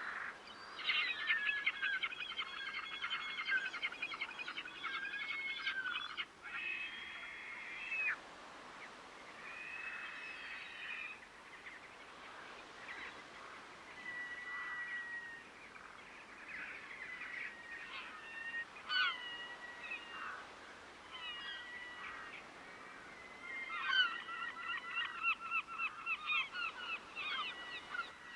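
Waterbirds calling. A dense run of harsh, rapidly repeated calls fills the first few seconds, scattered single calls follow, and another fast run of calls comes near the end.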